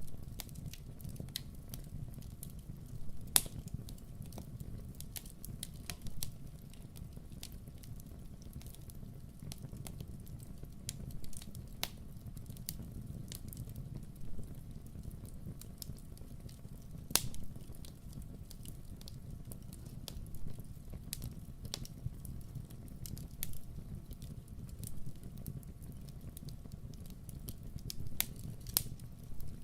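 Campfire burning: wood crackling with scattered small pops and a few louder sharp snaps over a steady low rumble.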